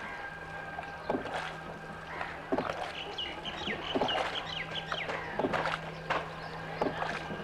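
A small boat being paddled through water: irregular splashing strokes in the water, about one a second. A quick run of high chirps comes about three seconds in.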